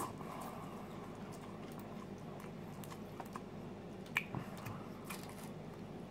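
Quiet mouth sounds of a person eating instant cup noodles: chewing and slurping in noodle strands, with scattered faint clicks and one sharper click about four seconds in.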